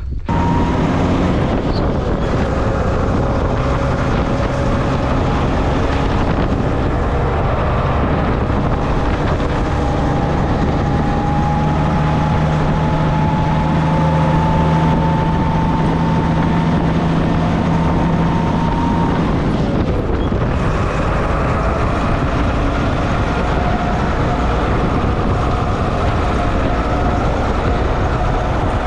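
A motor vehicle's engine running steadily under way, with a whine that slowly rises in pitch from about ten to nineteen seconds in, then a short break near twenty seconds.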